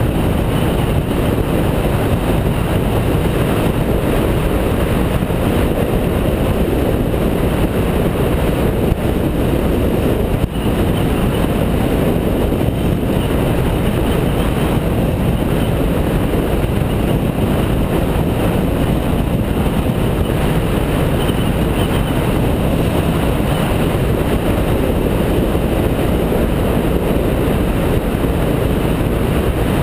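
BMW F650GS motorcycle riding at a steady road speed: a continuous rush of wind and engine noise, with no clear engine note standing out.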